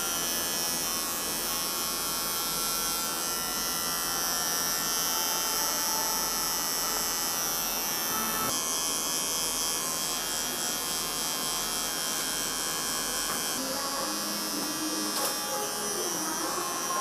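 Cordless electric beard trimmer buzzing steadily as it cuts a man's beard.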